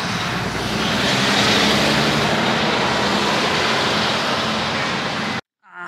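Street traffic: a vehicle's engine running close by with the rush of passing cars, which swells about a second in. It cuts off suddenly near the end.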